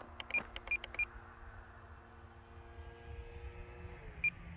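Distant electric motor and propeller of a 3D-printed RC Sportster (2836 1100KV brushless motor) droning steadily in flight, the pitch dropping about four seconds in as the throttle is eased. A few short high beeps sound near the start and again near the end.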